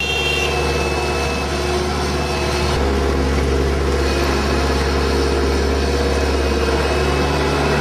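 Vehicle engines running steadily with a deep hum; the sound changes abruptly about three seconds in.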